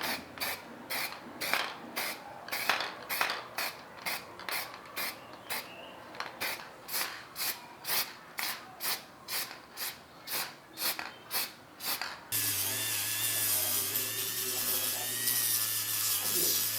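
Hand rubbing strokes, back and forth about twice a second, like sanding or scraping. About twelve seconds in they stop and a steady power tool with a low hum takes over abruptly.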